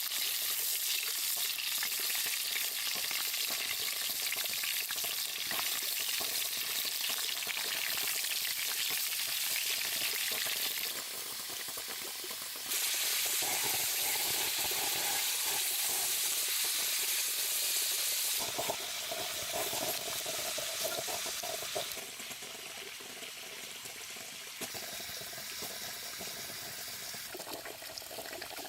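A steady hissing noise that shifts abruptly in level and character several times.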